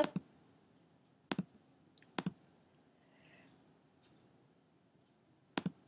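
Computer mouse clicks: a few sharp, scattered clicks in the first couple of seconds, then a long gap and one more click near the end.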